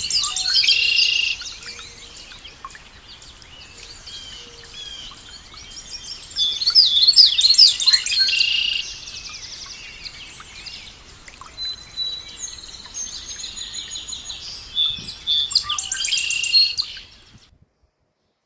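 Songbirds singing: bursts of rapid high chirps and trills in three spells, loudest in the middle, over a faint steady background. The sound cuts off suddenly near the end.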